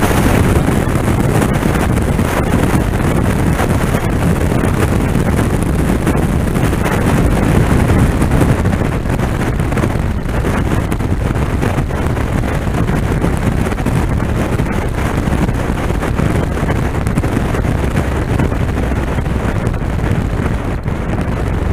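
Wind rushing over the microphone on a motorcycle moving at road speed, over the steady drone of its engine and tyres.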